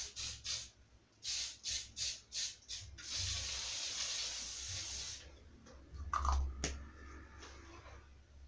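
Aerosol hair spray sprayed onto hair: a quick series of short spritzes, then one steady spray of about two seconds. A few soft handling knocks and rustles follow.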